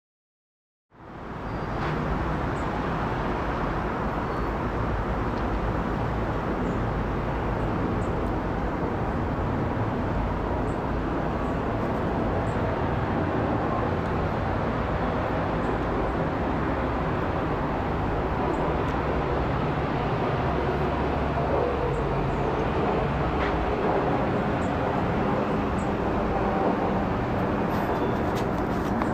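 Boeing 777-300ER airliner's twin GE90-115B turbofans heard from the ground as the jet passes low overhead on approach: a steady jet rumble that begins about a second in and holds at an even level.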